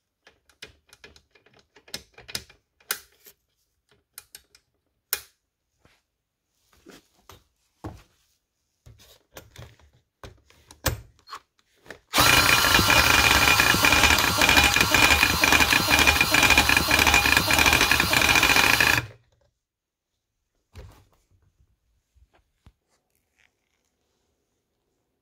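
Cordless drill spinning a small motorcycle engine by its flywheel nut to crank it over: a loud, steady whir that starts about twelve seconds in, runs for about seven seconds and stops abruptly. Before it, scattered clicks and knocks of parts being handled.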